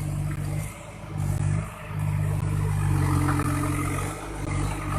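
Case 580 Super M backhoe loader's diesel engine revving up in three surges under load, the longest in the middle, as the machine works bogged down in mud.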